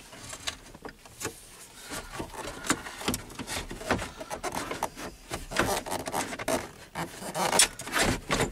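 Plastic instrument cluster housing rubbing, scraping and clicking against the Dodge Ram's dash opening as it is worked into place by hand from the bottom up. The clicks and scrapes come irregularly, several a second.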